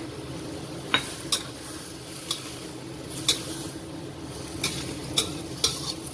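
A cooking utensil stirring a pan of luffa and rice vermicelli, knocking against the pan in about seven sharp, irregular clicks, over a steady low sizzle of the pan on the heat.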